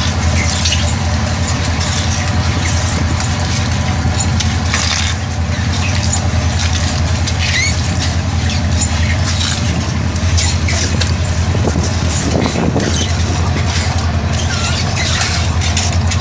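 A squid fishing vessel's machinery runs with a loud, steady low drone. Short high squeaks and chirps come and go over it throughout.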